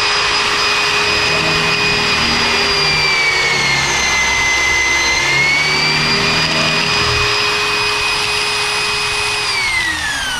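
Bench-clamped electric drill running at full speed with a steady whine, its pitch dipping for a second or two in the middle under load as the spinning bit bores a centring hole into a plywood panel. Near the end the drill is switched off and the whine falls away as it spins down.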